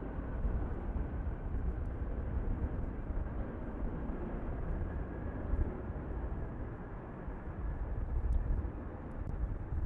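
Jet engines of a narrow-body twinjet airliner at takeoff thrust, heard from a distance as a steady low rumble.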